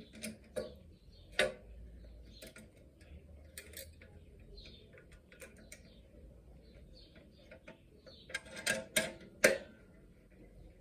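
Scattered light clicks and taps of a wooden workpiece and tools being handled on a workbench, with a few louder knocks near the end. No saw is running.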